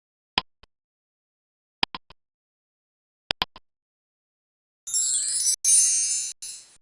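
Quiz countdown ticks, a short double tick about every second and a half, then about five seconds in a bright, tinkling chime sound effect that marks the answer reveal.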